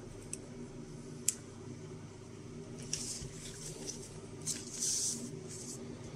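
Handling noise: two sharp clicks as the night-vision monocular is handled and set down, then the paper user manual rustling and sliding on the desk in two spells.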